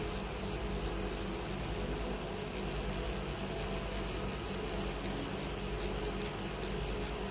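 Electric permanent-makeup tattoo pen buzzing steadily during eyebrow tattooing: a constant low hum with fast, regular ticking over it.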